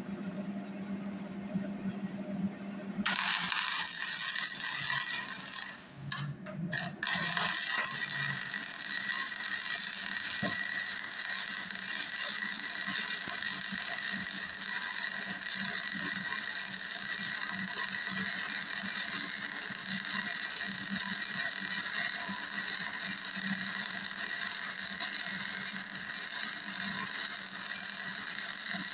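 Flux-core arc of a Hobart Handler 120 wire-feed welder running on DCEN, crackling steadily as a bead is laid. The arc strikes about three seconds in after a low hum, drops out twice briefly around six to seven seconds, then runs on unbroken. The welder judges that the wire feed roller has too little pressure on it.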